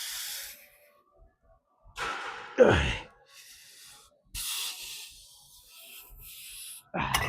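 A man breathing hard during a set of heavy reps on a gym weight machine: forceful, hissing exhales through the teeth, and a strained grunt that falls in pitch about two and a half seconds in.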